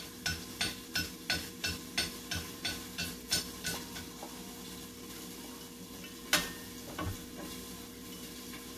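Stainless-steel cutting cone of a Saladmaster food processor clicking metal on metal as it is turned at the machine, about three clicks a second for some three and a half seconds, then two single clinks later.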